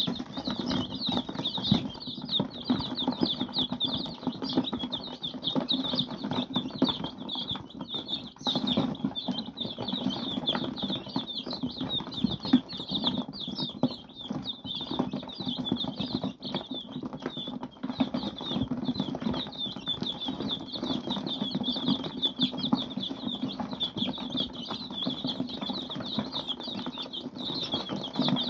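A brood of young chicks peeping without pause in a dense, high-pitched chorus, with a steady patter of small taps and scratches from their pecking at food on cardboard.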